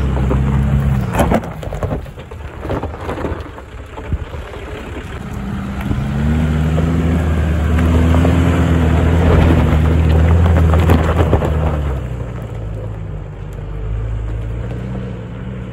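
Nissan Patrol GR Y60's engine pulling under load as the 4x4 crawls up a loose dirt mound, with tyres crunching and crackling over gravel and stones. The engine grows louder about six seconds in and eases off near twelve seconds.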